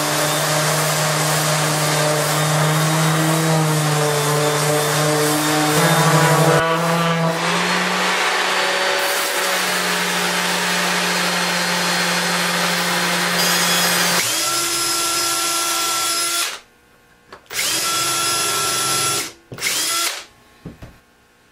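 Electric random orbital sander running against a wooden board, a steady motor hum whose pitch dips and shifts as it is pressed and moved. After about sixteen seconds it stops, then runs again in two short bursts before stopping near the end.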